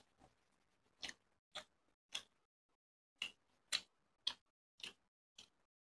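Faint mouth sounds of a person chewing a mouthful of rice and curry: short, wet clicks at an even pace of about two a second.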